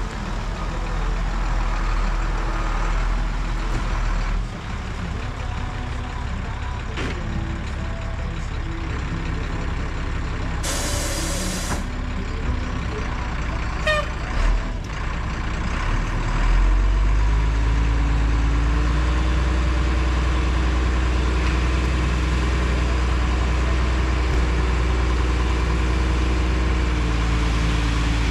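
Heavy diesel truck engine running. About 11 s in there is a one-second hiss of released air, and from about 16 s in the engine runs louder and steadier.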